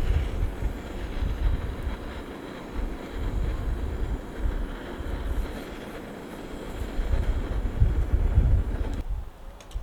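Wind buffeting the microphone in uneven gusts, over a steady rush of noise.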